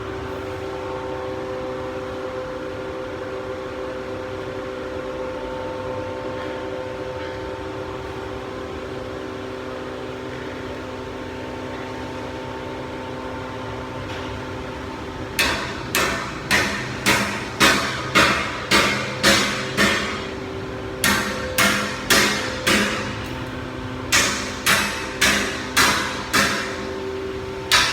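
Decorative-iron metalworking machinery running with a steady, even hum. About halfway through, sharp metal-on-metal strikes begin, about two a second, in three runs with short pauses between them.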